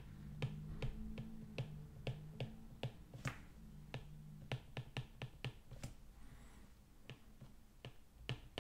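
Stylus clicking on a tablet screen while writing by hand: a light, sharp tap with each pen stroke, roughly three a second at an uneven pace.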